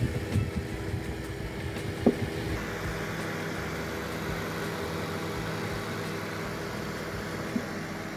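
Microwave oven running: a steady hum with several fixed tones from its cooling fan, with a short knock about two seconds in and a smaller one near the end. The repaired fan runs normally, with no abnormal noise beyond its ordinary whirr.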